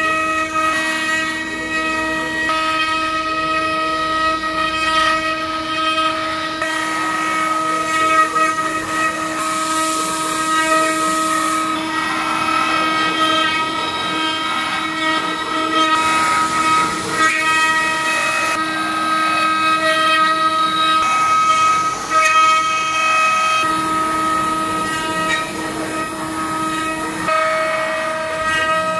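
Eight-spindle CNC wood router running, its spindles giving a steady high whine with several held tones over the hiss of the bits carving hardwood blocks.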